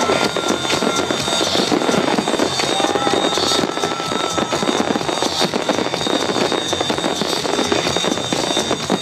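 Fireworks barrage: many fountains and shells crackling and popping at once in a dense, unbroken stream, with a thin, steady high whistle held through it.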